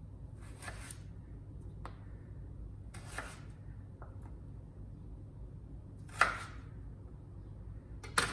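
Kitchen knife slicing through a raw potato on a cutting board: three slow cuts about three seconds apart, the third the loudest, with a few light knocks of the blade on the board.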